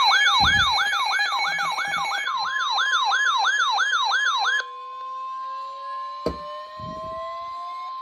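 An electronic weather-alert siren yelping in rapid falling sweeps, about three and a half a second, joined about two seconds in by the steady 1050 Hz NOAA Weather Radio warning alarm tone. The yelp cuts off about halfway, and the steady alarm tone carries on, with a faint slowly rising tone and a single click.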